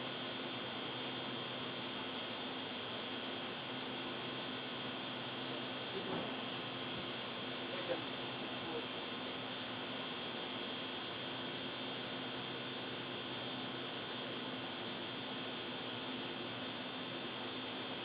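Steady electrical hum with several steady tones over a faint hiss, and a few faint knocks about six and eight seconds in.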